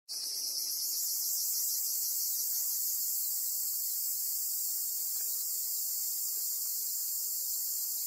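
Steady, high-pitched drone of a chorus of singing insects.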